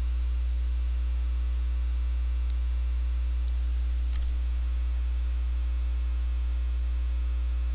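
Steady low electrical mains hum with a faint hiss, broken by a couple of faint clicks.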